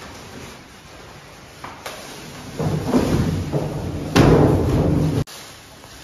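Packaging being pulled off a new refrigerator: the cardboard carton scraping and the plastic wrap crinkling. It starts about halfway through, gets loudest near the end and cuts off suddenly, after a couple of light knocks.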